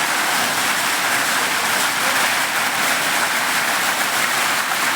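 Heavy rain falling: a loud, steady, even hiss.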